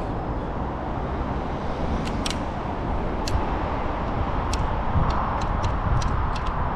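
Steady low rumble of road traffic, swelling a little in the second half, with a scatter of sharp light clicks, most of them close together near the end.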